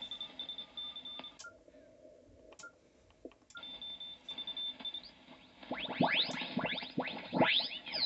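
Kenwood TS-590SG HF receiver audio from a loudspeaker on the 40 m band: a Morse code (CW) signal keying a steady high tone, broken by a few clicks and short beeps from band-key presses. In the last few seconds the tuning knob is turned, and signals sweep through as whistles gliding up and down in pitch.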